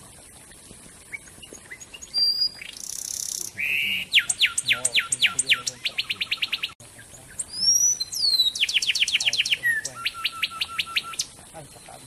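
A wren singing two loud phrases. Each is a rapid run of sharply down-slurred notes that gets faster toward the end. The first opens with a harsh rasp, the second with a couple of rising whistles.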